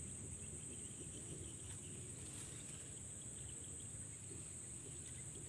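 Insects in the swamp vegetation keep up a faint, steady, high-pitched drone, with a low rumble of wind or mic handling beneath it.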